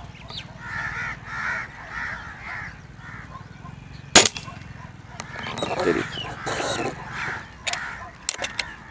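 An LB-600 break-barrel spring-piston air rifle fires one shot about four seconds in, a single sharp crack and the loudest sound here. Birds call repeatedly around it, and near the end come a few short metallic clicks as the barrel is broken open to cock it.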